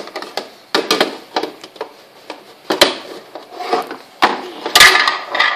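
Hard plastic parts of a Tornado Beystadium knocking and clattering as they are handled, lifted and fitted together, with irregular sharp knocks and some rubbing between them.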